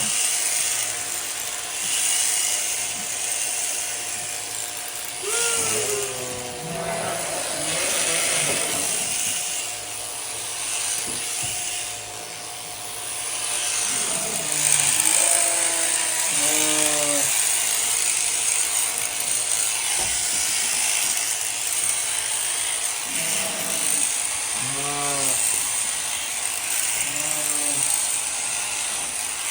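Electric sheep-shearing clippers buzzing steadily as a fleece comes off, with sheep bleating several times.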